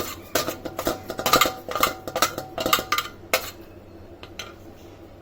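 Utensils clinking and tapping against a cooking pot as carom seeds (ajwain) are added to the water: a quick run of clinks, some briefly ringing, for about three seconds, then only a few faint taps.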